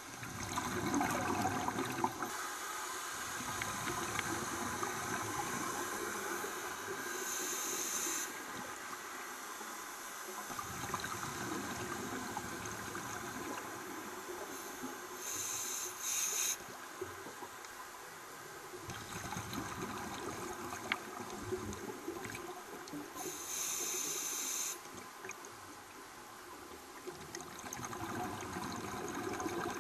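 A scuba diver's regulator breathing, heard underwater: a hissing breath about every eight seconds, with bubbling and water noise in between.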